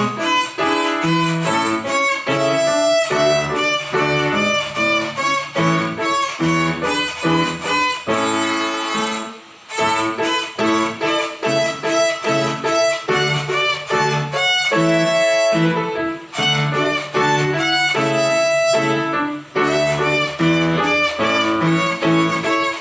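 Violin playing a simple tune in short bowed notes, with lower notes underneath as accompaniment; the music breaks off briefly about nine and a half seconds in, then carries on.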